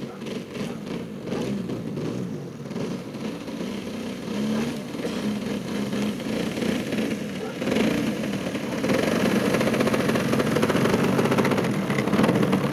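Engine and propeller of a radio-controlled aerobatic plane running while it taxis on grass. It gets louder about two-thirds of the way through as the plane comes close.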